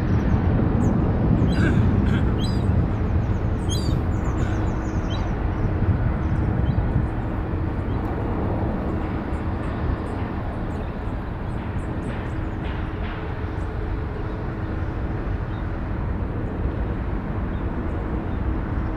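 United Boeing 777-200 airliner on final approach, its twin turbofan engines at low landing thrust making a steady, deep rumble. Short high chirps sound over it in the first few seconds.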